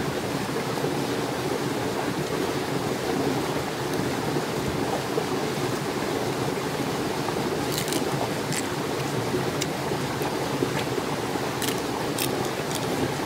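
Steady rushing noise, like flowing water or wind, at an even level throughout. In the second half, a handful of short sharp clicks and cracks come over it as boiled crab shell is picked apart by hand.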